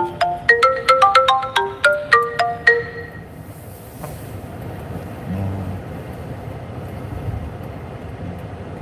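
A phone ringtone, a quick marimba-like melody of single notes, plays and stops about three seconds in. After it, only the steady low rumble inside the car cabin remains.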